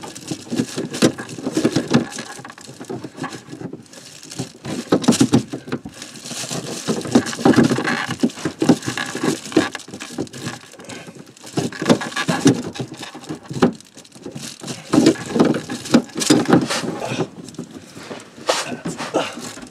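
Irregular rustling, scraping and clicking of hands working in a cramped space, turning the nut on a shower drain fitting to tighten it.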